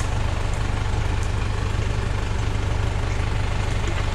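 Suzuki Jimny's engine running with a steady low drone as the 4x4 is driven along a rough off-road trail.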